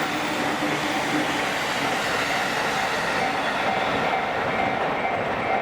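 Train passing through a multi-track level crossing, its wheels running over the rails with a steady rumble and clatter. Over it, the crossing's warning signal rings as a repeating electronic tone.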